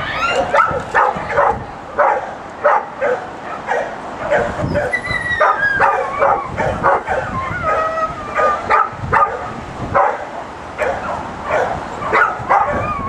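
A dog barking over and over in short, sharp yaps, several a second at times, with a few longer drawn-out calls in the middle.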